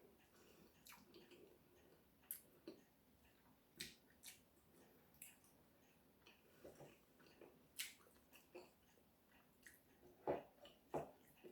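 Faint, scattered eating sounds: soft chewing with small clicks and taps, and two louder knocks near the end.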